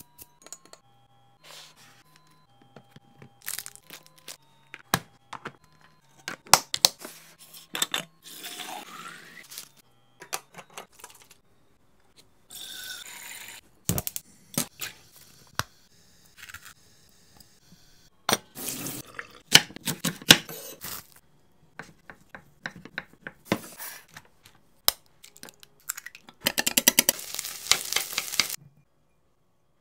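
Home cooking sounds in quick succession: utensils and containers clicking and tapping on dishes, a sharp click as a gas hob burner is lit about halfway through, and near the end a fast run of scraping strokes as eggs and diced ham are stirred in a rectangular tamagoyaki pan.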